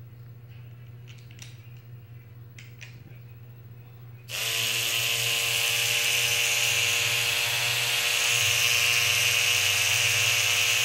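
A few faint clicks, then about four seconds in a DGT rotary tattoo machine, built almost entirely of plastic, switches on and runs with a steady, even-pitched buzz, set low at about 7 volts.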